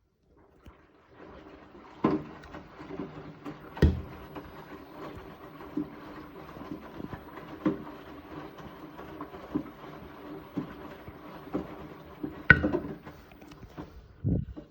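Beko WTK74011W washing machine running a wash, its drum motor humming steadily with a knock or thud about every two seconds as the drum turns. The sound starts about a second in and cuts off abruptly at the end.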